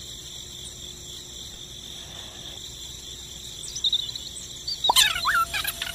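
Crickets trilling steadily in one high, unbroken tone. About five seconds in, a short burst of high warbling chirps and a couple of sharp clicks cuts in over it.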